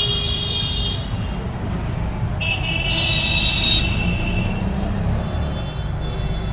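Vehicle horns honking over a steady low rumble of street traffic: a short honk right at the start and a longer one about two and a half seconds in, with a fainter horn near the end.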